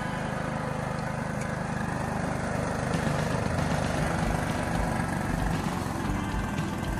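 Engine of an OREC RMJ800 riding mower running steadily.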